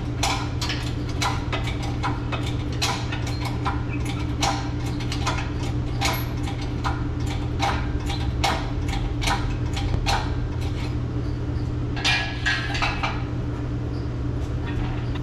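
Irregular metallic clinks and rattles from the hoist chain and hardware as the old Dodge 360 engine hangs from an engine hoist and is lifted out of the engine bay, with a denser clatter about twelve seconds in. A steady low hum runs underneath.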